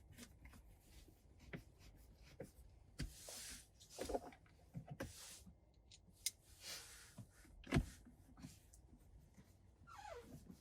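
Faint clicks, knocks and rustles of plastic interior trim and wiring being handled in a car's centre console, with a sharper knock about eight seconds in.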